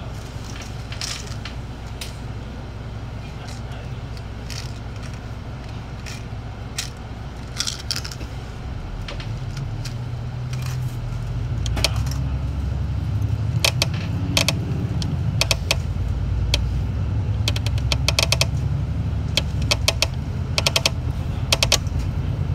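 City bus engine and road rumble heard from inside the bus, with frequent rattling clicks from loose interior fittings. The rumble grows louder about halfway through, and the rattles come thicker and faster after that.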